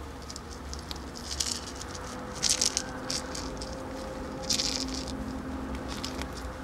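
A small leopard-print cat toy ball rattling as it is shaken in short bursts, loudest about two and a half and four and a half seconds in.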